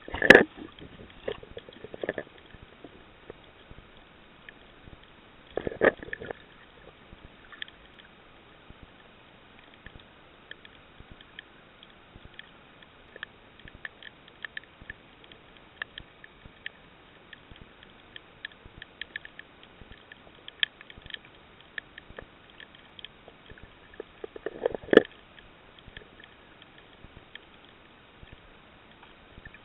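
Underwater ambience over a shallow coral reef: scattered crackling clicks throughout, with three short, louder bursts of water noise, near the start, about six seconds in, and near the end.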